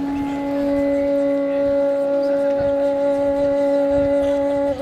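A low musical note held steady, like a wind instrument or a drone, with a second note an octave higher coming in shortly after the start and holding to the end.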